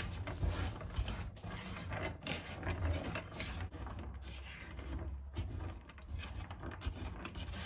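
Roasted almonds rattling and scraping in a metal frying pan as a spatula stirs them, an irregular run of small clicks and scrapes.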